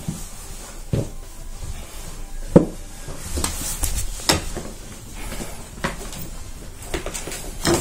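Irregular knocks, clicks and rustles of objects and a handheld camera being handled and bumped. The sharpest knock comes about two and a half seconds in, and a quicker run of clicks follows about a second later.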